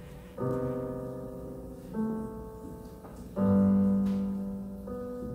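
Piano introduction: four slow chords, each struck and left to ring and fade, the third the loudest.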